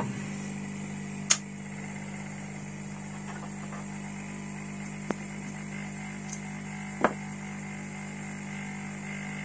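Hot air rework station running with a steady hum, and three light clicks: about a second in, midway, and about seven seconds in.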